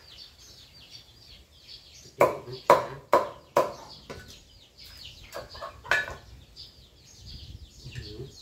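Meat cleaver chopping down on a wooden chopping block: four hard chops in quick succession about two seconds in, then two lighter ones a few seconds later. Birds chirp faintly in the background.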